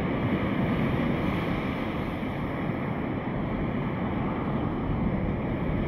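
Steady, even rushing noise with no beat or break, the kind made by moving air or water.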